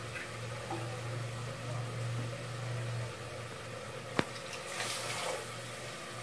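Water poured from a steel tumbler into a pressure cooker of fried vegetables, a short splash about five seconds in, just after a sharp metal clink. The water is being added to the sautéed vegetables for cooking pulao, under a low steady hum.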